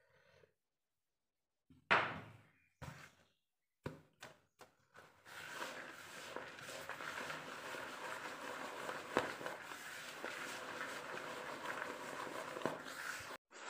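A hand working a crumbly rice-flour mixture in a plastic bowl: a loud knock about two seconds in and a few lighter knocks, then continuous rustling and scraping with small ticks that stops abruptly near the end.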